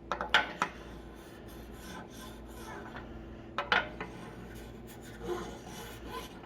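A ringless 81 mm piston, oiled, being slid by hand in and out of a Honda B16A cylinder bore: metal rubbing and scraping on metal, with a few sharp clicks and knocks, the loudest about four seconds in. It is a fit check that the bore lets the piston pass without binding.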